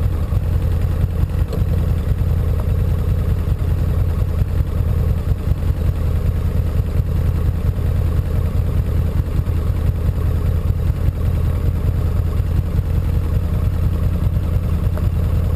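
Motorcycle engine idling steadily with a low, even throb.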